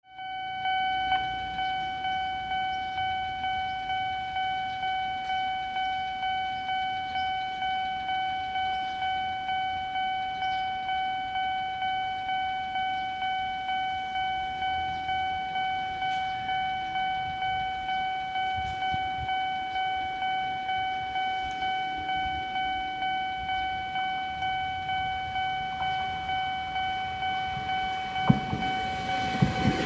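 Japanese level-crossing warning bell ringing, a repeated electronic clang about three strikes every two seconds, meaning a train is coming. Near the end a knock and a growing rumble come as an Eizan Electric Railway train approaches the crossing.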